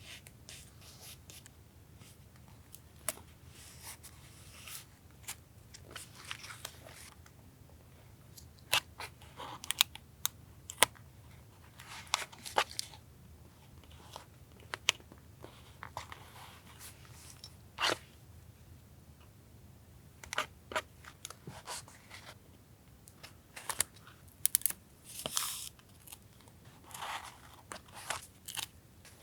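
Paper being handled, torn and pressed down while a journal page is collaged: irregular sharp clicks and taps with short rustles and tearing of paper, over a faint steady hum.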